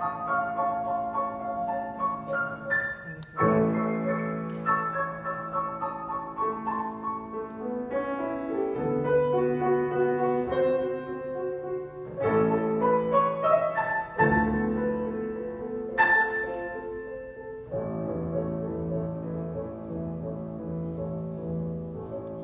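Grand piano played four hands in a classical-style duet: sustained chords over held bass notes, with loud struck chords about three and a half seconds in, around twelve seconds and around sixteen seconds.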